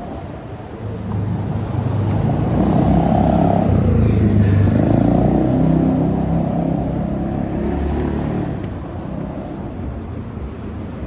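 A car driving past, its engine and road noise growing louder, then fading away.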